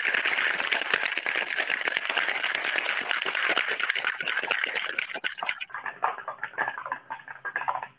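Ice rattling inside a tin-on-tin cocktail shaker shaken hard: a fast, continuous clatter of ice against metal that thins out over the last couple of seconds.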